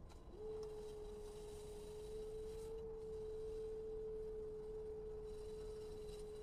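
Electric pottery wheel's motor whining at one steady pitch as the wheel spins. It glides up briefly about half a second in as the wheel speeds up, then holds level.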